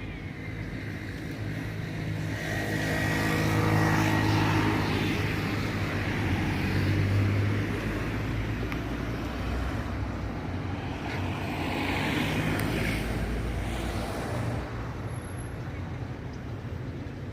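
An engine humming steadily with outdoor noise, growing louder a few seconds in and easing off, then swelling again briefly later on.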